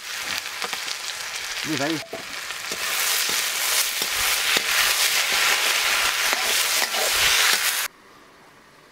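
Sliced potatoes, onion and greens sizzling in hot oil in a metal wok, stirred and scraped with a metal spatula. The sizzle grows louder about three seconds in and cuts off abruptly near the end.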